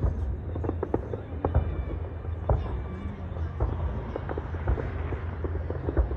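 Distant fireworks display: irregular bangs and crackles of shells bursting, over a steady low rumble.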